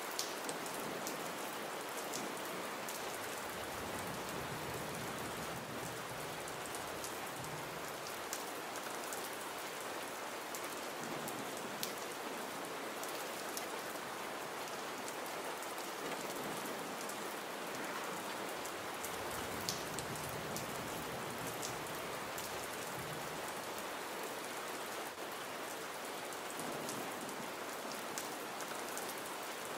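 Steady gentle rain: an even hiss of rainfall with scattered sharp ticks of single drops landing.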